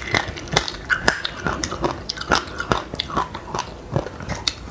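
A person chewing dry chilli seeds and buckwheat, with irregular sharp crunches several times a second.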